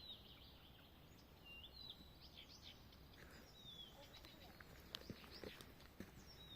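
Faint birdsong: small birds chirping and whistling in short falling and rising notes, with a few soft clicks in the second half.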